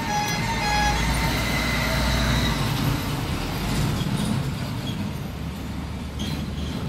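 Road traffic noise with a vehicle rumbling past, loudest in the first two and a half seconds. An alternating two-tone siren stops about a second in.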